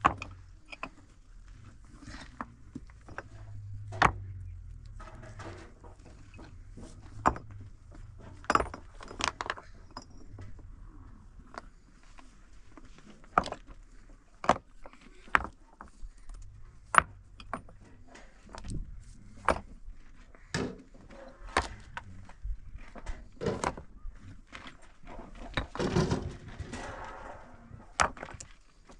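Rough fieldstones set one on another by hand as a dry-stone wall is stacked: irregular sharp clacks and knocks of stone on stone. A denser rattle and scrape of shifting stones comes about three-quarters of the way through.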